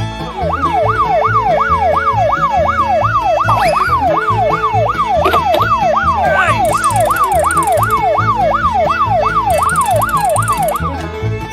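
Toy police van's light-bar siren sounding: a fast rising-and-falling wail, about three sweeps a second, that stops near the end. Background music with a steady beat plays underneath.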